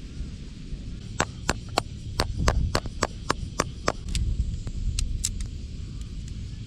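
A run of about ten sharp knocks, roughly three a second, like hammer strikes, then two more a second later, over a low steady rumble.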